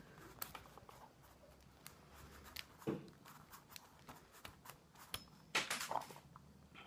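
Small metallic clicks and light rattles from a pin-tumbler lock cylinder being taken apart by hand. There is a soft knock about three seconds in, and a quick run of louder clicks shortly before the end.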